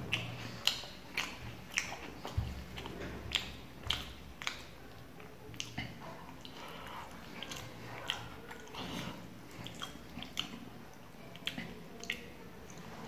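Close-up chewing of roti with curry, eaten by hand: irregular wet lip smacks and mouth clicks, several each second.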